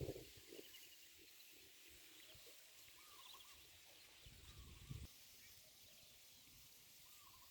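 Near silence outdoors, with faint scattered bird chirps and one soft low thump about five seconds in.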